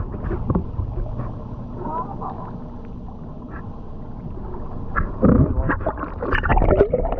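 Small boat running slowly along a crab trotline: a steady low hum with water and wind noise, then a louder stretch of knocks and splashing about five seconds in.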